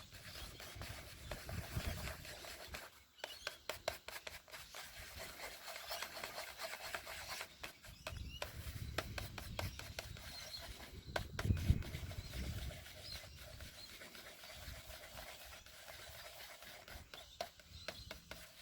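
Light, irregular scraping and rubbing of JB Weld two-part epoxy being mixed by hand, with scattered small clicks.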